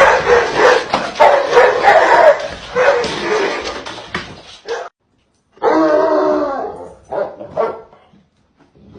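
A dog barking and crying out in a run of calls that stops abruptly about five seconds in, followed by one longer drawn-out cry and two short calls.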